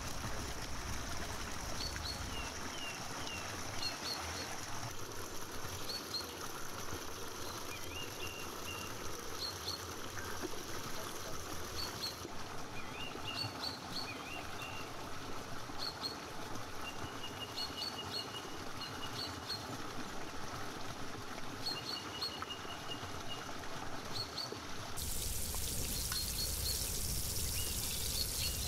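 Water running and trickling in a stone channel while rice is rinsed and drained in a metal basin, with small birds chirping again and again. About 25 seconds in the sound changes abruptly to a louder steady hiss.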